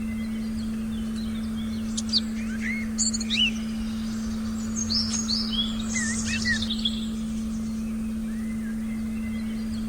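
Forest ambience of small birds chirping in quick, sweeping calls, busiest from about two to seven seconds in. Under it runs a steady, unwavering low tone.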